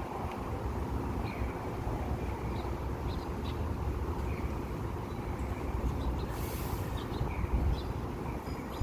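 Steady low rumble of street traffic with short bird chirps scattered through it, and a brief hiss about six and a half seconds in.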